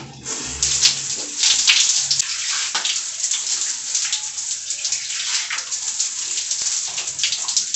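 Running water splashing in an irregular way as exfoliating gel is rinsed off the face with the hands.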